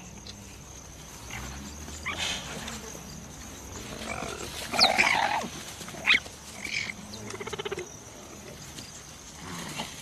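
Cheetah cubs growling and calling as they play-fight. There are a few short, separate calls, the loudest about five seconds in and another sharp one just after.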